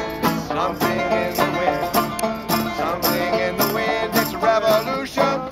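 Banjo and guitar playing together in a bluegrass style, quick picked notes in a steady rhythm.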